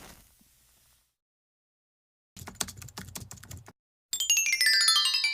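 A keyboard typing sound effect, a quick run of key clicks lasting about a second and a half. After a short pause comes a bright chime effect, a rapid run of ringing tones falling in pitch.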